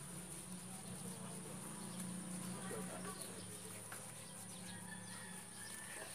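Faint outdoor background with a steady high thin whine and a low hum, and a few faint short chirps about three seconds in.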